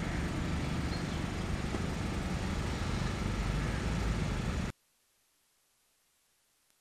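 Steady outdoor background noise, a low rumble with hiss, that cuts off abruptly about four and a half seconds in, leaving near silence.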